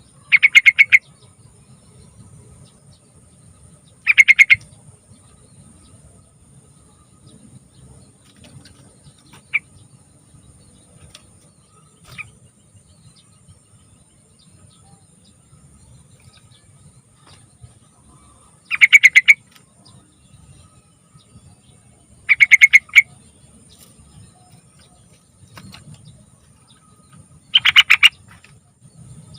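Yellow-vented bulbul singing: five short, loud phrases of rapid bubbling notes, each under a second, at uneven gaps, with two faint single notes between them. A faint steady high tone and low background hiss run underneath.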